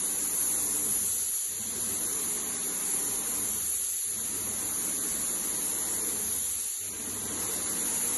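Wagner Control Pro 250M airless paint sprayer spraying: a steady hiss over a low hum, dipping briefly about every two and a half seconds.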